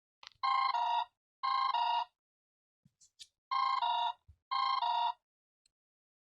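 A Xiaomi Redmi Go smartphone playing an Android ringtone through its speaker: an electronic imitation of a telephone ring, in two pairs of short warbling double rings with a pause between the pairs.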